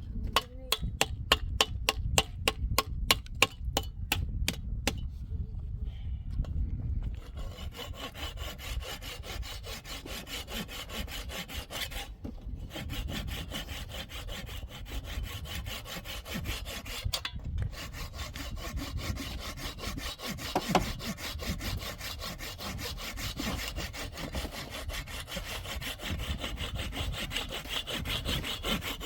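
Building work by hand: sharp, evenly spaced rasping strokes, about three or four a second, for the first few seconds. About seven seconds in they give way to a dense, steady sawing-like rasp that carries on.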